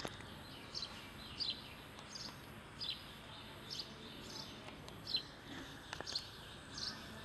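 A bird repeating a short, high, falling chirp about every three-quarters of a second over a steady faint background hiss, with a sharp click at the start and another about six seconds in.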